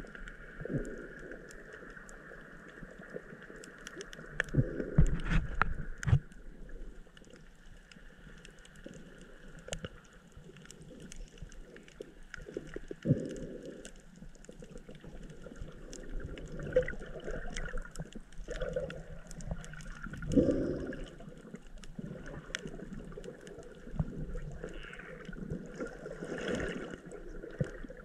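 Muffled underwater sound recorded by a camera submerged over a coral reef: a steady watery hiss with many faint scattered clicks, and a few louder swishing surges of water, about five, thirteen and twenty seconds in.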